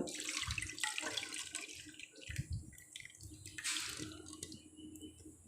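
Coconut milk being poured into a kadai, a liquid splashing and pattering into the pan, heaviest at first and trailing off, with a brief last splash near the end.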